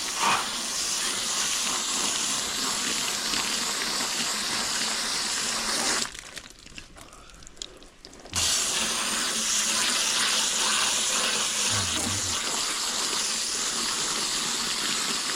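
Hose spray nozzle jetting water onto an air-conditioner condenser coil to rinse off coil cleaner: a steady hiss of spray that stops for about two seconds past the middle, then starts again.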